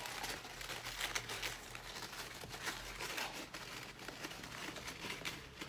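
Crepe paper rustling and crinkling in the hands as it is wrapped around a round cardboard box, a continuous run of irregular soft crackles.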